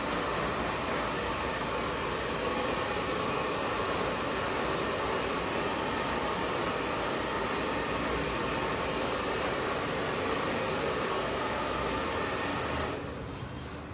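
Steady rushing air noise from an electric blower, switched off about a second before the end.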